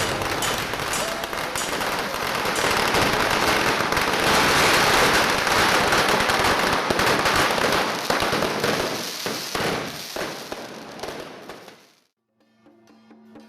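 Long string of firecrackers going off in a dense, continuous rapid crackle. It is loudest around the middle and thins out to nothing near the end.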